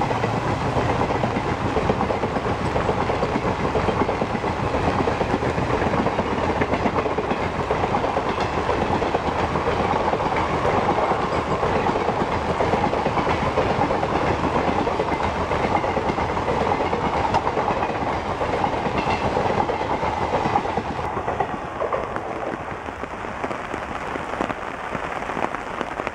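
Passenger train coaches passing at speed, their wheels clattering over the rails in a steady din. About twenty seconds in, the noise eases as the last coaches go by and the train draws away.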